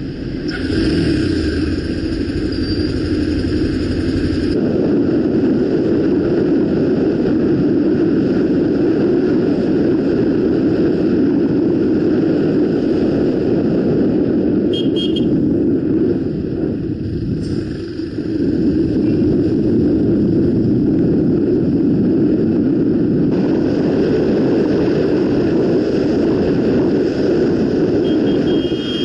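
Honda CBX 250 Twister's single-cylinder four-stroke engine running under way, mixed with wind rushing over the camera microphone. The sound shifts abruptly a few times where ride clips are spliced together.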